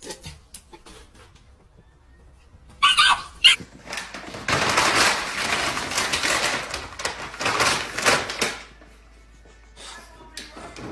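A dog barks sharply twice about three seconds in. Then a clear plastic bag crinkles and rustles for several seconds as a dog walks tangled in it.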